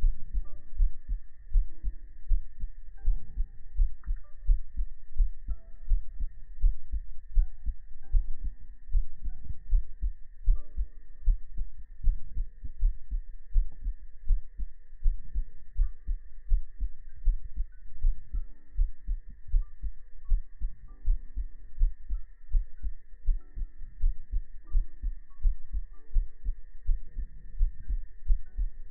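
Heartbeat heard close up, a steady run of low, evenly repeating thumps.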